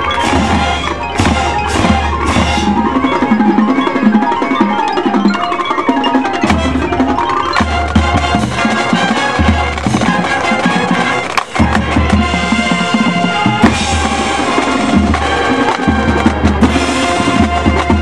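High school marching band playing its show, full wind ensemble with heavy bass drum hits and marimba and glockenspiel from the mallet percussion.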